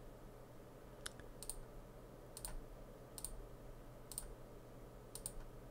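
Faint computer mouse clicks, about once a second, some in quick pairs, as folders are clicked and double-clicked open in a file browser, over a low steady hum.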